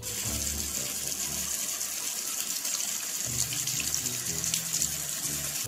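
Bathroom faucet running steadily into a sink, a constant splashing hiss as hands are washed under the stream.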